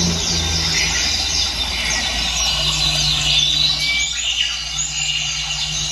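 A recorded bird chorus of many overlapping chirps and short whistles, played as a nature sound effect through a small speaker fed by a car MP3/FM transmitter, with a steady low hum underneath.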